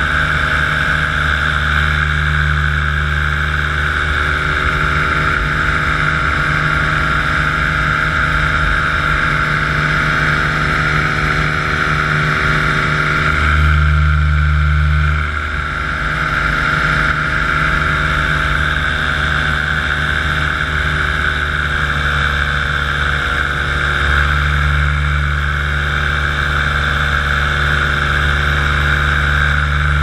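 Paramotor's Radne Raket 120 two-stroke engine and propeller running steadily in flight. About halfway through it briefly opens up, then eases off for a moment before settling back to a steady cruise.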